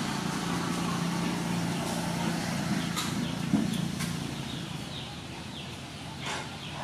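A steady low engine hum that fades out about four seconds in, with a sharp knock near the middle and a few short animal calls near the end.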